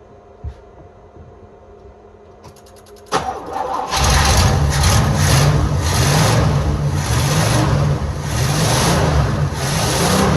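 Box Chevy's carbureted engine cold-started after sitting a long time: a brief burst of starter cranking about two and a half seconds in, then it fires about a second later and keeps running loud and uneven, its pitch pulsing.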